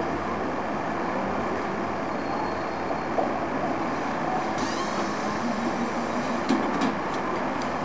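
Tram at a station stop, then starting off: a brief rising electric whine about halfway through, then a few sharp clicks and knocks as it begins to roll, over a steady wash of street and station noise.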